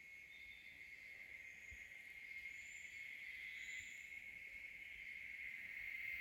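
Faint, steady high-pitched insect drone that slowly swells in loudness, with a few short high chirps above it. It is not a howler monkey call.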